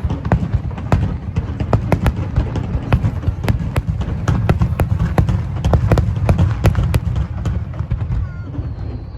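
Fireworks display: a rapid, irregular crackle of many sharp bangs over a continuous low rumble, thinning out near the end as a thin whistle glides down in pitch.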